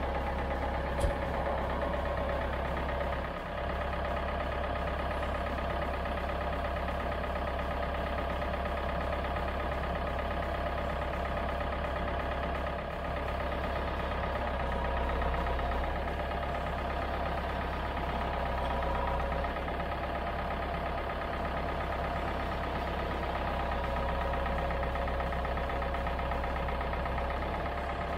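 Case 1394 tractor's diesel engine running steadily while its front loader lifts a welder on a sling. A single sharp click about a second in.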